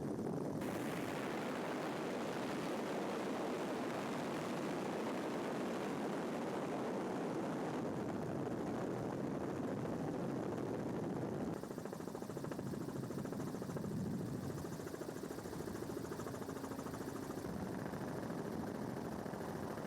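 Helicopter noise heard from on board: a steady drone of rotor and engine, with a dense rapid chop. Its tone shifts abruptly about half a second in and again around eleven seconds in.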